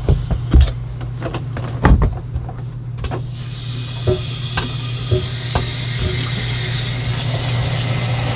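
A few knocks and clatter as a garden hose is handled at an RV toilet, then about three seconds in, water starts rushing from the hose into the toilet to fill the black tank, over a steady low hum.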